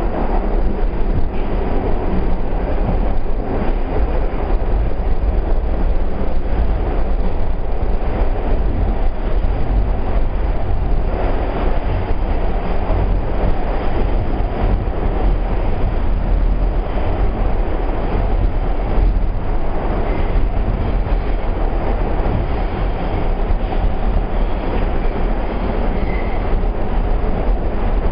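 Steady, deep train noise from a New York City Subway R44 car (St. Louis Car Co., 1973), even in level with no clear rhythm of wheel clicks.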